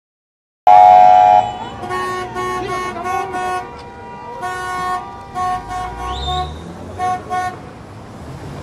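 Vehicle horns honking: a loud blast about a second in, then clusters of short toots, several a second, from passing pickups. A brief rising siren chirp comes near the middle, over low engine rumble.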